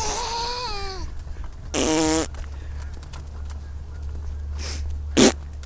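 Mouth-made fart noises: raspberries blown through the lips, one buzzy one about two seconds in and a short loud one near the end. A high vocal squeal, which fits a baby's voice, slides down in pitch in the first second.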